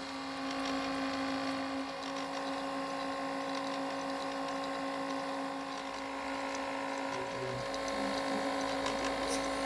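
Van de Graaff generator running with a steady electric motor hum made of several steady tones.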